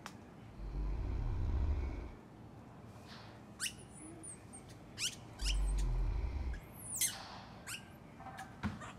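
Sleeping monkey snoring: two low snores, about four seconds apart and each a second or more long. Several short, high squeaks that fall steeply in pitch come between and after them.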